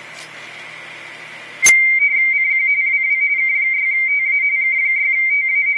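Hiss from an ICOM IC-7410 transceiver's receiver, then a click about a second and a half in as a radio teletype (RTTY) signal comes in. The signal is a rapid warble flipping between two close high tones, the mark and space of its frequency-shift keying, sent by an amateur station.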